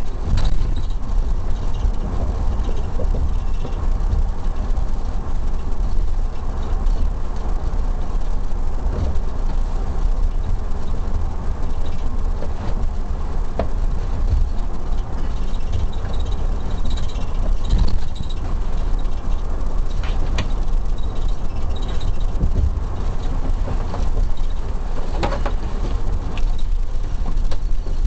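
Road and engine noise heard from the back seat of a moving police car: a steady low rumble, with a few light clicks and knocks.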